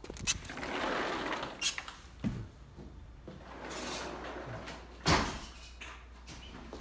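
A sliding glass patio door rolling along its track, with clicks and knocks from the frame. There is a sharper thump about five seconds in.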